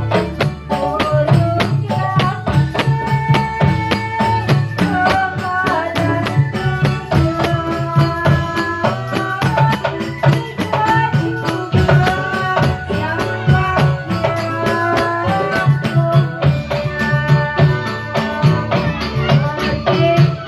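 Dolalak music: fast hand-drum and small percussion over a steady low drum pulse, with a wavering melody line above.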